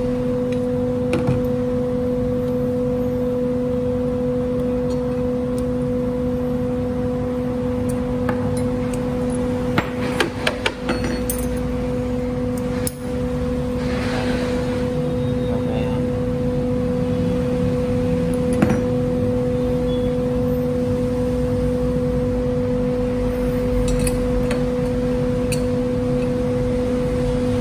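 Scattered metal clinks of wrenches and a collet nut as the bit is changed on a CNC router spindle, with a cluster of them about ten seconds in, over a loud, steady machine hum.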